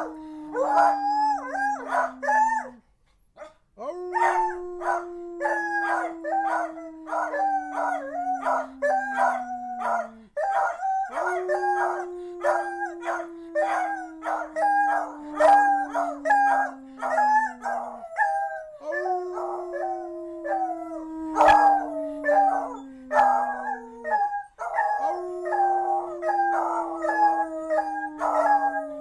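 Two beagles howling together: many short, broken howls in quick succession over a long, lower howl that slides down in pitch and repeats about every seven seconds.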